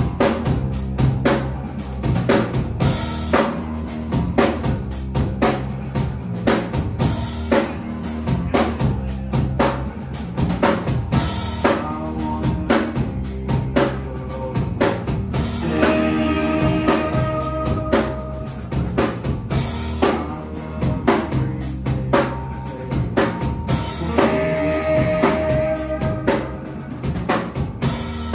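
Live band playing an instrumental passage: a drum kit keeps a steady beat with cymbal crashes over sustained low notes. Held higher notes come in about halfway through and again near the end.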